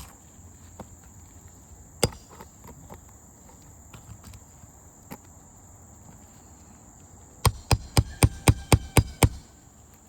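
Roofing hammer striking a nail-pulling tool to draw nails from old 3-tab asphalt shingles: one sharp knock about two seconds in, then a quick run of eight blows near the end.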